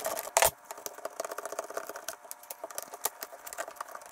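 Light metallic clicks and rattles as the jump box's battery terminal hardware and cable connectors are handled and unfastened, with a sharper clink about half a second in.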